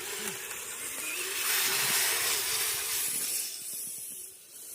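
Kyosho Blizzard RC snowcat driving through deep snow: its electric motor runs with a faint wavering tone over a steady hiss, which drops away near the end.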